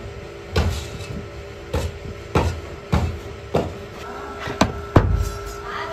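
About seven dull knocks and thuds at uneven intervals as a steel sand-casting moulding flask packed with sand is handled and struck, over a steady machine hum.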